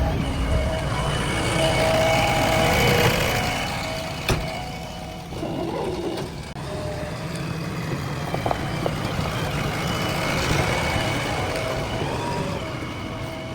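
JCB 3DX backhoe loader's diesel engine running steadily while it works, loudest in the first three seconds, with one sharp knock about four seconds in.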